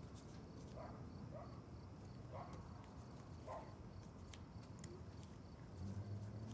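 Faint quiet room tone with a few soft, scattered taps and clicks of jigsaw puzzle pieces being handled. A low hum swells briefly near the end.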